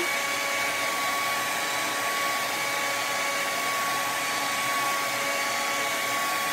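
Handheld hair dryer running steadily: a continuous rush of air with a steady whine.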